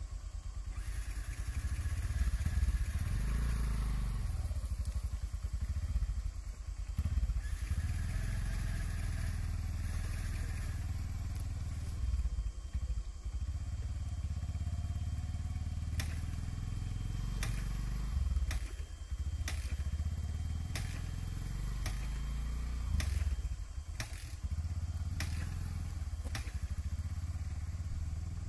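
Small motorcycle engines running and revving unevenly, the sound swelling and dipping as they labour through deep mud. Sharp clicks come about once a second in the second half.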